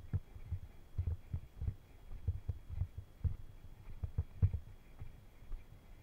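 Low, muffled thumps, about two a second and a little irregular, with faint clicks on some: the footfalls and handling knocks of a handheld camera carried at a walk.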